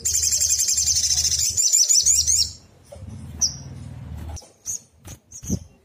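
Sunbird song: a fast, dense run of high twittering chirps lasting about two and a half seconds, then a few scattered single high chips. A low hum sits beneath the first part.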